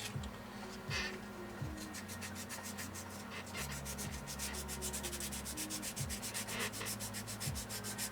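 Rapid back-and-forth rubbing strokes, about six or seven a second, like hand sanding or scuffing. The strokes start about two seconds in and keep an even rhythm, over a steady low hum.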